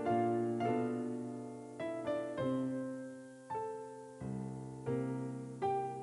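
Piano music: a slow melody of single notes and chords, each struck and left to fade.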